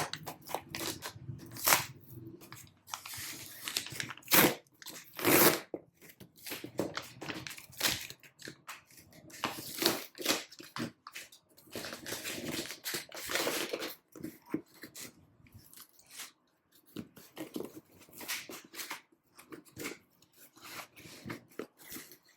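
Packaging being handled: irregular crinkling and rustling of plastic and paper wrappers, with several louder crackles in the first half.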